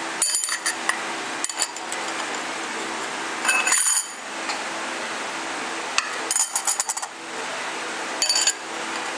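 Steel clutch plates of an Allison LCT 1000 transmission's C1 clutch pack clinking against one another and the drum as they are set in one by one by hand: about five short clusters of metallic clinks, over a steady background hum.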